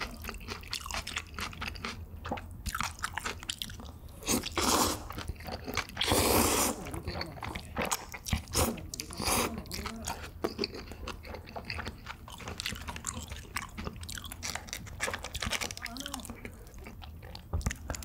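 Close-miked crunching and chewing of crispy fried chicken, with sharp crackles throughout and two louder, longer bursts about four and six seconds in.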